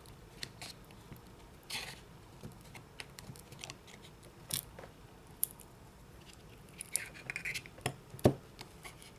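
Scattered light clicks and brief scrapes of small repair tools prying at the glued-in battery inside an iPhone 5s, with a couple of short scratchy passes near 2 and 7 seconds and a sharp tick near the end.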